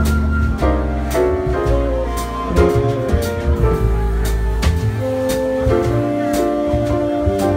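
A small jazz combo playing live: plucked upright bass and drum kit with regular cymbal strokes, under a melody line of changing held notes.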